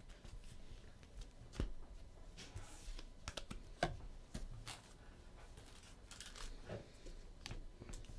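Scattered light clicks, taps and faint rustling of trading cards and their packaging being handled and opened.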